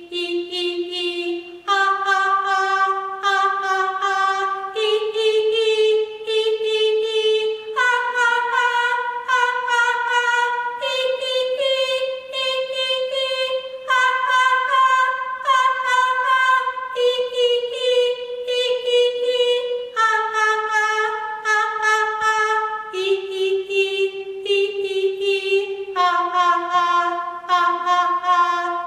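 A woman singing a vocal warm-up exercise: long held sung notes that step up in pitch, a few seconds on each step, to a peak about halfway through, then step back down to the starting note.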